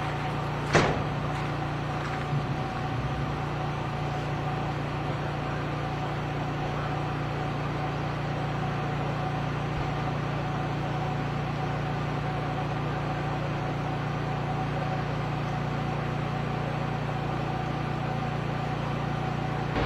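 Steady low hum of idling cars, with one sharp click about a second in.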